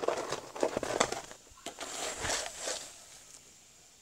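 Coarse, chip-like potting substrate crunching and rustling as it is pushed and pressed by hand around a desert rose's raised roots: a busy run of crackles, loudest about a second in, that thins out after about three seconds.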